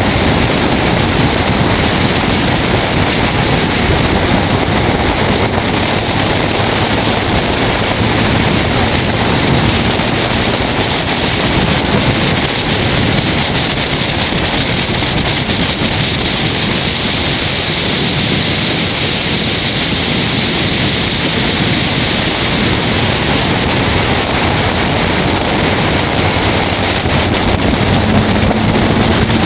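Loud, steady wind rush on the microphone of a camera mounted on the bonnet of a racing car at speed, with the car's engine running faintly underneath.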